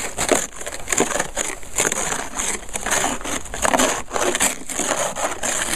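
Snow brush sweeping packed snow off a van's painted side panel: quick repeated scraping, brushing strokes, a few a second.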